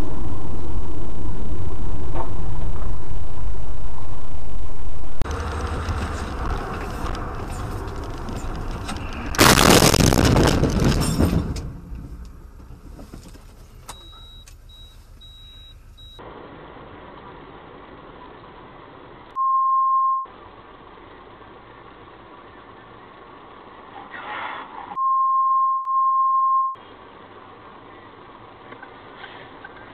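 Dash-cam car audio: steady road and engine rumble, a loud burst of noise lasting about two seconds around ten seconds in, then two steady censor bleeps, one short and one longer, that blank out the rest of the sound.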